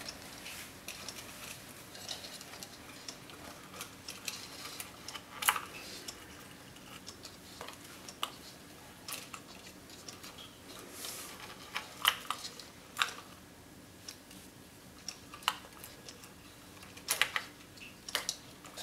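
Irregular small clicks and light handling noise of wire connectors being pulled apart by hand, as a cuckoo clock mechanism's wiring is disconnected at its plugs.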